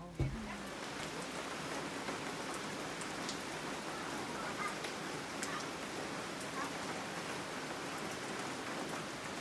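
Steady rain falling on the forest canopy and undergrowth, an even hiss with scattered drops ticking. A single short knock right at the start.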